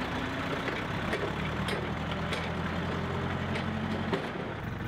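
Engines of a compact farm tractor and a propane forklift running together as the tractor tows the forklift, stuck in loose gravel, forward on a strap. The engine note holds steady, then drops about four seconds in.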